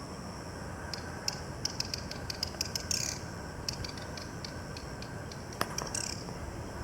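Female Daurian redstart calling: a scattered series of short, sharp clicking calls, with a louder, rougher call about three seconds in and another near the end.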